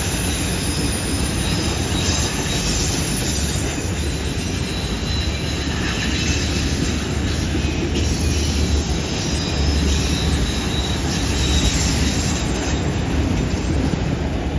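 Freight train of autorack cars rolling past on a curve: a steady rumble of steel wheels on rail with a faint high wheel squeal.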